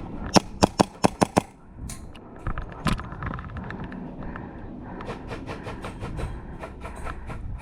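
Airsoft guns firing: sharp single snaps scattered through the first three seconds, then a quicker run of shots over the last couple of seconds.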